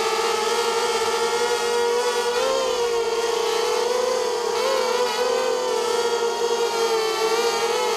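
Small FPV hexacopter's brushless motors and propellers whining steadily as it lifts off, the pitch briefly rising twice as the throttle shifts.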